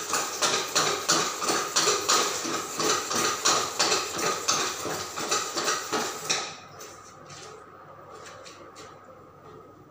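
Brass hand-pumped pesticide sprayer being worked: even metallic pump strokes about three a second with a hiss, stopping suddenly about six seconds in, followed by a few light clicks.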